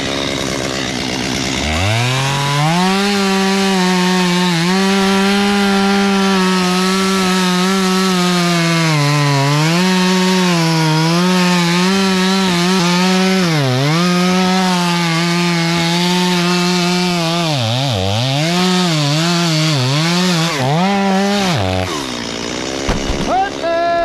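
Chainsaw revved from idle to full throttle about two seconds in and held there. Its pitch dips again and again as the chain loads up in the cut, and the saw drops off near the end.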